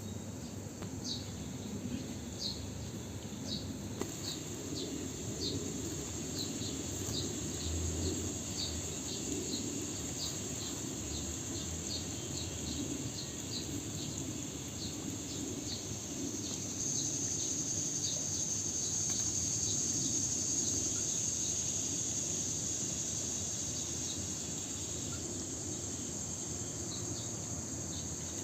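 Insects chirping: a short high chirp repeats about twice a second over a steady high-pitched buzz. The buzz swells louder past the middle, and the chirping stops near the end.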